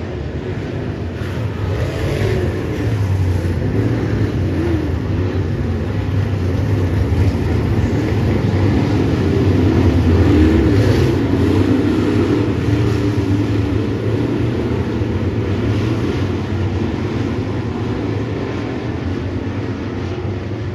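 Pack of Midwest Modified dirt-track race cars racing, their engines revving up and down through the turns. It grows loudest about halfway through as one car passes close by, then eases back.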